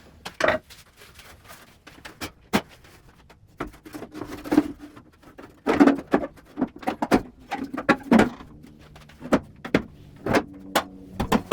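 Irregular clicks, knocks and hollow thunks of a bandsaw's wheel cover being closed and fastened, scattered throughout with no steady motor sound.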